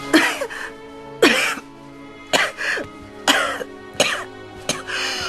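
A woman coughing in a series of short fits, roughly one a second, over soft film score music.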